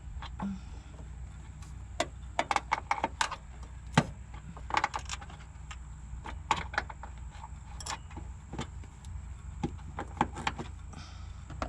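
Hand tools working metal nuts loose: irregular sharp clicks and clinks in short clusters, over a low steady hum.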